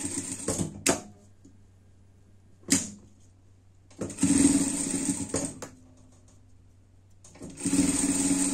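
Industrial sewing machine stitching fleece in three short runs of one to two seconds each. Two sharp clicks fall in the pauses between runs.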